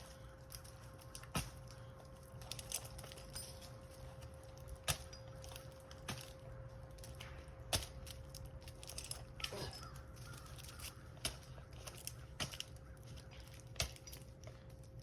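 Sharp knocks of climbing spur gaffs stabbing into the tree trunk, about six spaced irregularly a second or more apart as the climber shifts his feet. A faint steady hum runs underneath.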